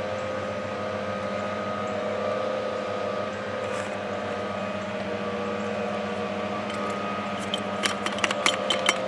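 A steady mechanical hum throughout. From about seven and a half seconds in, a quick run of light clicks and taps as a wooden dowel rams an AA battery down a PVC pipe barrel.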